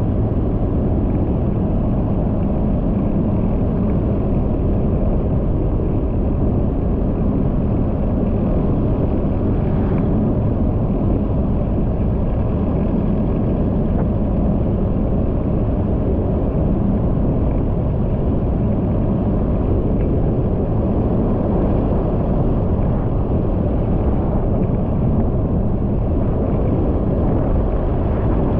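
Steady rumble of a vehicle driving along a paved road at a constant speed of about 45 km/h: road, wind and engine noise with no changes.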